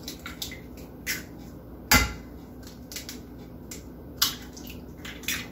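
Eggs knocked against the rim of a mixing bowl and broken open by hand: scattered light clicks and taps, with a sharp knock about two seconds in and another just after four.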